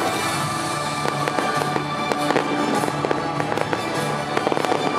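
Aerial fireworks going off in quick succession, many sharp pops and crackles every second, over music with long held notes.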